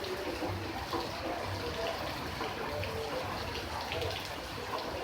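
Steady water noise, trickling and splashing with many small drips and gurgles, keeping an even level throughout.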